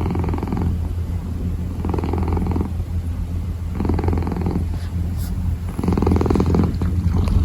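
A kitten purring without a break, the purr swelling about every two seconds as it breathes in and out.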